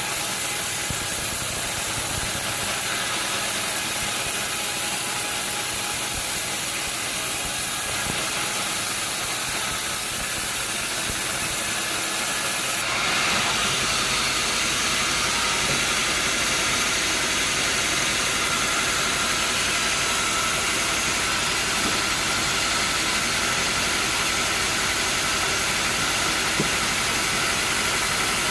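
Sawmill machinery running steadily with a dense mechanical noise; about halfway through it steps up louder and fuller.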